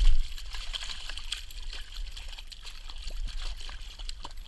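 Shallow water splashing and trickling as a hand grabs a hooked brown trout at the water's edge, with a louder splash right at the start.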